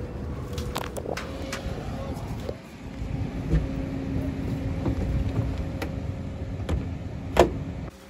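A steady machinery hum with scattered footsteps and knocks, and one sharp bang near the end.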